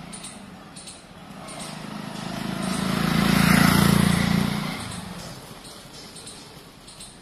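A motor vehicle driving past: its engine and tyre noise swells over a couple of seconds, is loudest around the middle, then fades away.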